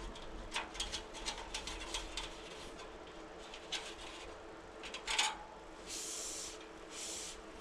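Light, scattered clicks and rubbing of a spoke key on the nipples as the spokes of a freshly laced carbon wheel are snugged up to roughly even tightness. Two short hisses come near the end.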